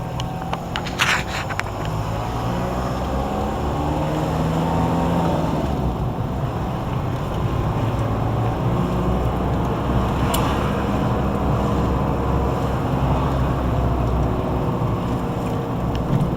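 Car engine and road noise heard from inside a moving car in town traffic, the engine note rising and falling with speed. A couple of brief clicks sound about a second in and again near ten seconds.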